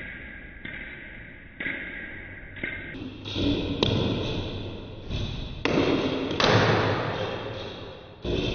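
Several sudden thuds, each ringing away over a second or so; the loudest comes in the second half.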